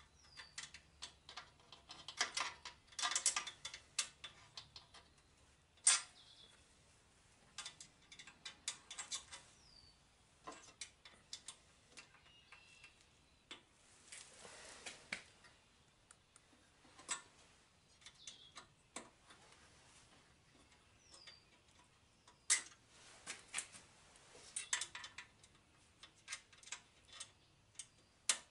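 Irregular clicks and clinks of metal parts and hand tools being handled while assembling a machine's fence, some in quick clusters of rapid ticks, with quiet gaps between.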